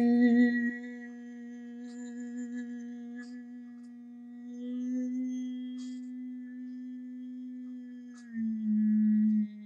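A man's unaccompanied voice holding one long note for about eight seconds, fading and then swelling again. Near the end it moves to a louder, slightly lower note that stops abruptly.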